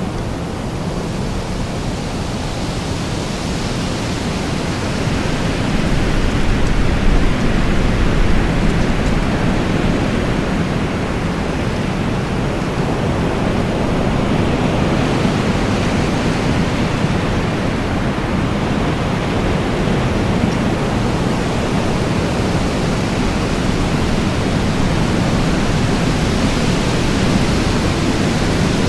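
Strong storm wind blowing steadily, a dense rushing noise that swells in gusts a few seconds in and stays loud.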